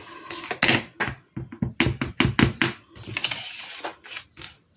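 Clear stamp on an acrylic block tapped repeatedly against a handheld ink pad to ink it: a quick run of light plastic taps in the middle, followed by a short rustle of paper.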